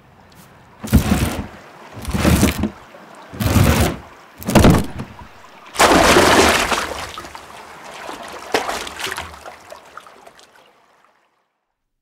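Water sloshing and splashing in four short surges, then a longer wash against a stone wall that slowly fades away.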